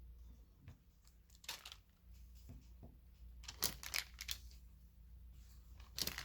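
Paper crinkling and rustling in a few short bursts: once about a second and a half in, a cluster of crackles in the middle, and a louder one near the end.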